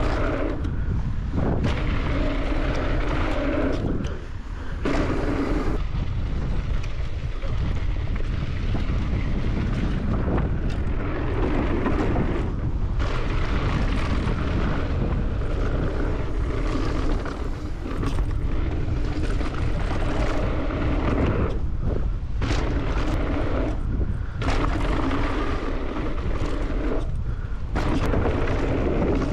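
Wind buffeting the camera microphone and an Evil Insurgent mountain bike's tyres rolling over a dirt trail on a fast downhill run. It is a steady, loud rush that dips briefly about four seconds in and again a little past the middle.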